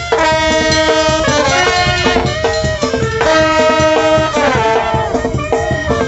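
Live Sinaloan banda playing a cumbia: trumpets, trombones and clarinets in loud held chords over drums. The horns come in together right at the start, with notes falling away at the ends of phrases about two and four and a half seconds in.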